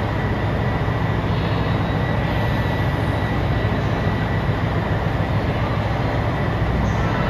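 JR Hokkaido limited-express diesel railcar engines running with a steady, unchanging drone, with a thin steady whine above it.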